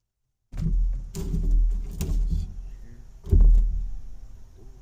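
Knocks and clunks of a wood stove's metal door being picked up and handled, with a heavy thump about three seconds in.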